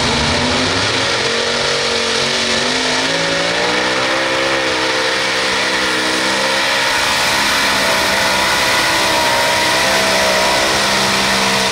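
Modified pulling tractor with several supercharged engines running at full throttle while dragging the pulling sled. The engine note climbs over the first few seconds, then holds high with a slight waver.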